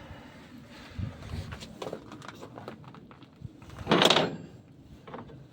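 Heavy metal truck brake parts being handled at a KAMAZ wheel hub: a few light knocks, then a short, loud scraping clatter about four seconds in and a smaller one near the end.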